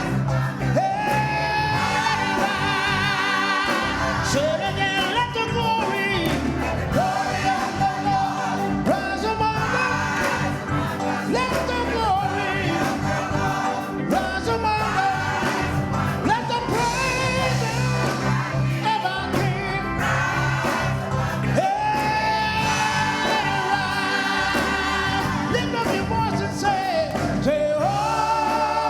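Gospel praise music: singers holding long notes with vibrato over a band with a steady bass line.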